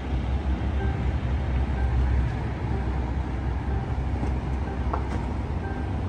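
Cabin noise inside a Ford F-150 Lightning electric pickup driving off: a steady low road and tyre rumble under an even hiss from the climate-control fan, with no engine note.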